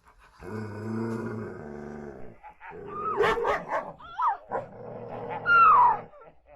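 An animal growling low for about two seconds, then a run of short yelping cries and a longer whining cry that falls in pitch near the end.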